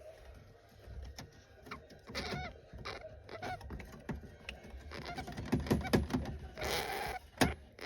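Kinkuma hamster, a Syrian hamster, squeaking in short, pitched calls, with scratching clicks and a burst of rustling near the end.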